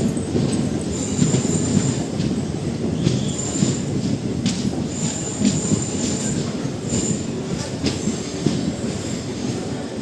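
Passenger train running at speed, heard from inside a coach: a steady rumble of wheels on the track with occasional knocks, and a high thin wheel squeal that comes and goes several times.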